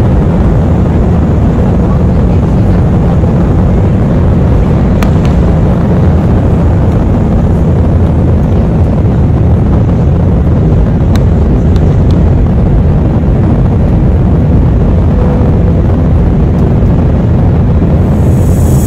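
Jet engines of a Jetstar Airbus A320-family airliner at takeoff power, heard inside the cabin as a loud, steady, low noise with rushing air through the takeoff roll, liftoff and initial climb.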